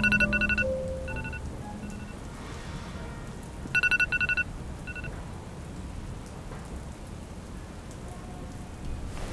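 Steady rain falling. Two short bursts of rapid electronic beeping come about four seconds apart, with a few single beeps between them.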